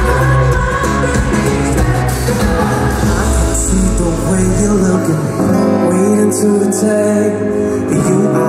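Live pop band music with singing, picked up by a camera microphone in the audience of a concert hall. The deep bass drops out about five seconds in, leaving guitar, keyboard and voices.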